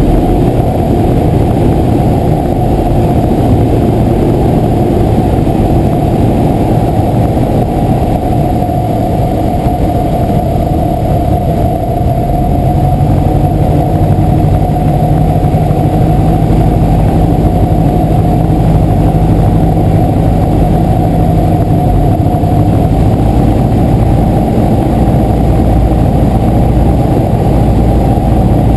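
Single-engine light airplane's piston engine and propeller running steadily, heard from inside the cockpit during a landing approach. Its low note shifts slightly about twelve seconds in.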